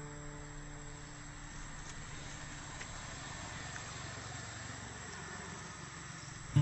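A faint, steady low rumble of background noise, with the last notes of a guitar tune dying away at the start and the music cutting back in right at the end.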